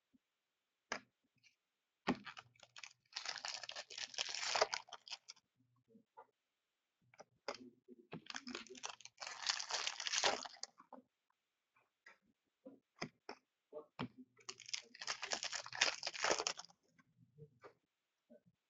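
Hockey card pack wrappers being torn open and crinkled, in three bursts of tearing about six seconds apart, with light clicks and rustles of cards being handled between them.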